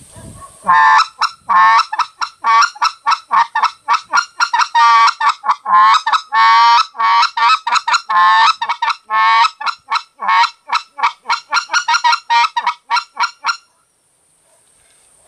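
Short-reed goose call blown by mouth to imitate white-fronted goose cackling. Quick, sharp clucks alternate freely with longer, lower drawn-out notes for about thirteen seconds, then stop near the end.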